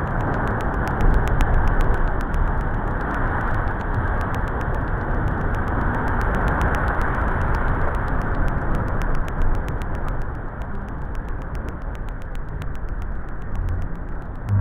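Sea water surging up a narrow rock trench, driven in by the high tide and forced up into the air as spray: a dense rushing and splashing with a deep rumble. It is loudest a second or two in and eases after about ten seconds.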